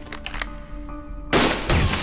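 A single loud gunshot about a second and a half in, ringing out briefly, over dramatic background music.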